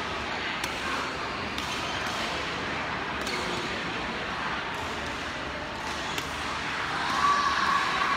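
Badminton hall ambience: a steady hubbub of voices and movement, with scattered sharp smacks of rackets hitting shuttlecocks, about one every second or two. A short high squeak near the end.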